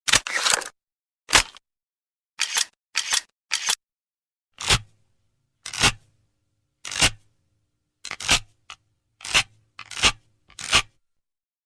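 Gun reloading and unloading sound effects: a series of short metallic clicks and racks of a firearm's action, about one a second with silence between, a few with a dull low knock.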